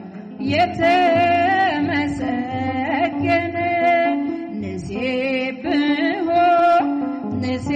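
Ethiopian Orthodox mezmur: a female singer sings an ornamented, gliding hymn melody over steady, sustained low instrumental accompaniment. The line breaks briefly about five seconds in, then a new phrase begins.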